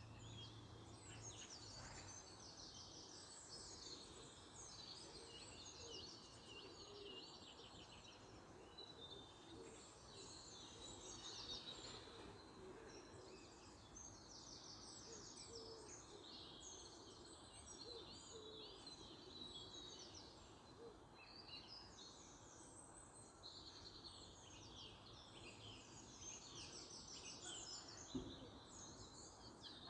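Faint outdoor birdsong: several small birds chirping, with a few rapid trills, over a steady low background hum. One brief knock near the end.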